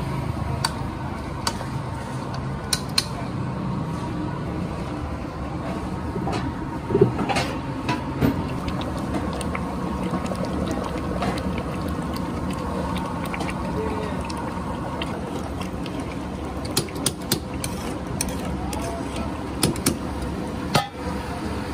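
Metal ladle stirring and clinking against an aluminium cooking pot of curry, giving occasional sharp clicks that come more often near the end, over steady background noise.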